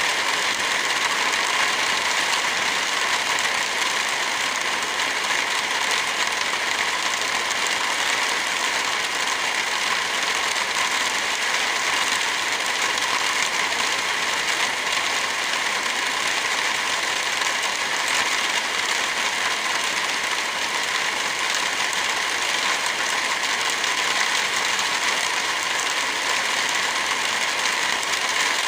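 Heavy rain falling steadily, a dense even hiss with no single drops or other events standing out.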